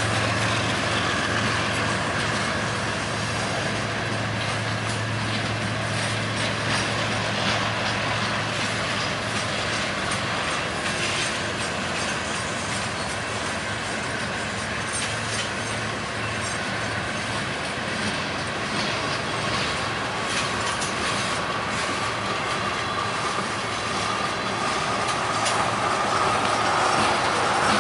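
Freight train passing: the diesel locomotives' low engine hum fades over the first several seconds as the freight cars roll by, wheels clicking over the rail joints. In the second half a thin wheel squeal comes in, slowly rising in pitch and growing louder toward the end.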